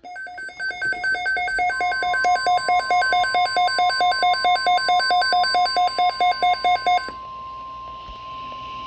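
A weather radio's built-in alert beeper sounding rapid beeps, about four a second, while the steady 1050 Hz NOAA Weather Radio warning tone joins about two seconds in. The beeping stops about seven seconds in, leaving the steady warning tone over static hiss. Together they signal a tornado watch alert.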